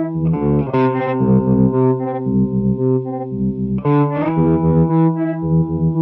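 Electric guitar (a Gibson Les Paul Custom) playing distorted chords through a Hologram Dream Sequence sequencer/octave pedal. The low notes pulse on and off in a steady rhythm, and the chord changes about half a second in and again about four seconds in.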